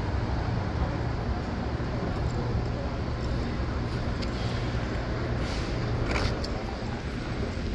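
City street traffic noise at an intersection, with a steady low hum that fades about six seconds in.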